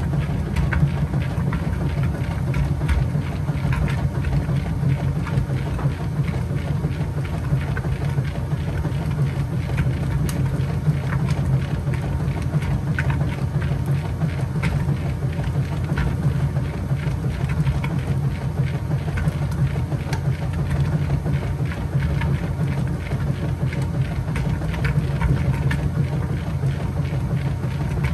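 Kenmore 80 Series top-loading washing machine agitating a load in the wash of its Heavy Duty cycle. A steady low motor hum runs under continuous churning and sloshing.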